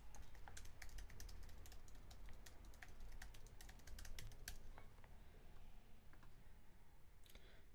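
Faint computer keyboard typing: a quick run of keystrokes lasting about four and a half seconds as a login email and password are entered, with a short click-like sound near the end.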